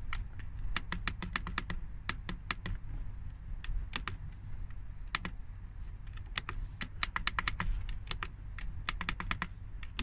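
Push buttons on a Chinese diesel heater's LCD control panel clicking as they are pressed over and over to step through the settings menu. There are dozens of clicks, some single and some in quick runs, over a low steady hum.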